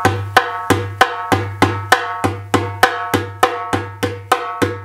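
Darbuka tak strokes played in a steady run, about three a second, each hit ringing with bright overtones over a low body resonance. The strokes move between the rim edge and slightly inside the skin to make a little melody.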